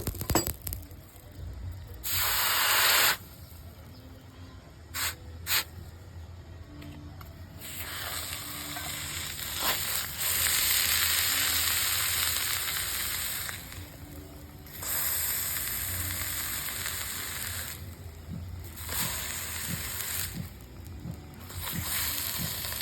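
Red-hot steel sizzling in repeated hissing bursts as it is hardened in quenching liquid, some bursts short and others lasting several seconds.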